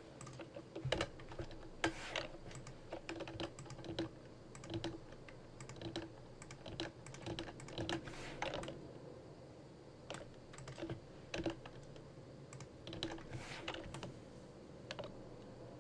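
Irregular clicking of a computer mouse and keyboard, many short clicks at uneven intervals with a faint steady hum beneath.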